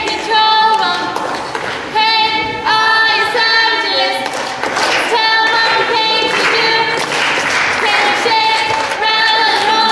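A group of voices singing short held phrases together, phrase after phrase with brief breaks between them.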